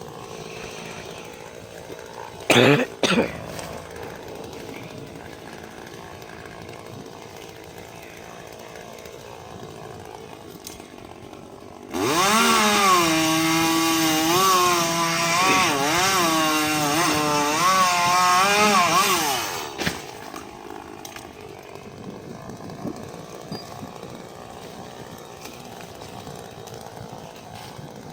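Chainsaw: a short blip of throttle about two seconds in, then about eight seconds at high revs midway through, its pitch dipping and rising; otherwise only low background noise.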